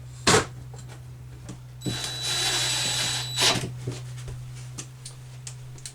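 Power drill running for about a second and a half with a steady whine. A sharp knock comes just before it and another as it stops.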